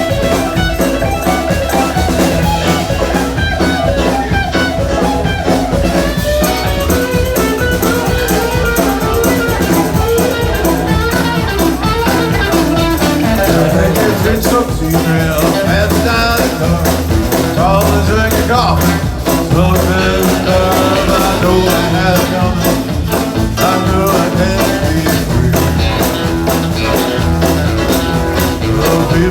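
Live band playing an upbeat blues-rock number with electric guitar and a drum kit keeping a steady beat.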